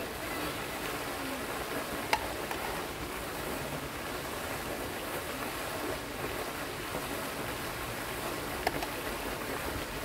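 Ornamental pond fountain: a tall water jet splashing steadily back into the pond, with two brief sharp clicks, one about two seconds in and one near the end.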